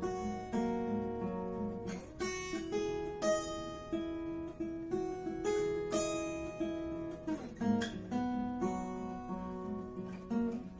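Acoustic guitar strummed, chords changing every second or so, in an instrumental break of a solo song.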